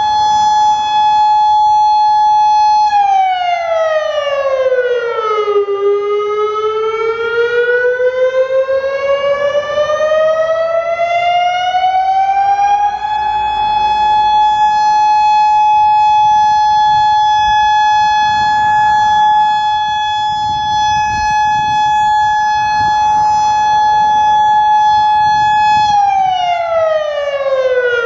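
Federal Signal Modulator 6048 electronic outdoor warning siren sounding its test tone. A steady high tone drops in pitch about three seconds in, then climbs slowly back. It holds level for about thirteen seconds and begins dropping again near the end.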